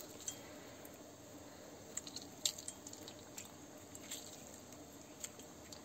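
Half a lemon being pressed in a hand-held steel lemon squeezer over a bowl of gram flour: faint squishing with a few small clicks and drips.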